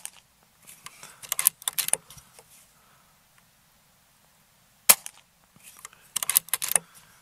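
Air Arms S510XS Tactical .22 PCP air rifle firing a shot about five seconds in. After each shot comes a quick run of clicks and clacks as the side lever is cycled to load the next pellet from the magazine.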